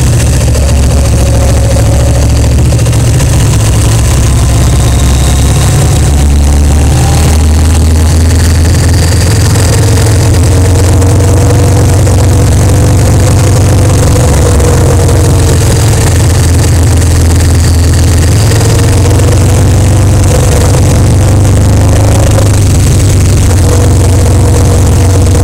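Kawasaki Vulcan 1500 V-twin engine running while the motorcycle rides along, with a heavy rumble mixed with wind noise. The engine note rises and falls with speed through the bends.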